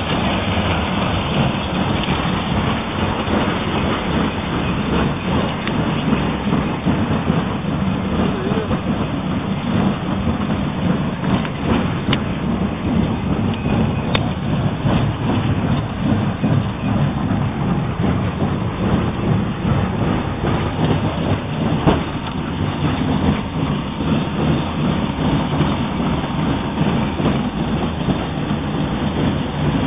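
Double roller crusher and belt conveyors of a stone-crushing plant running: a loud, steady mechanical din with a few sharp clacks from the machinery and stone.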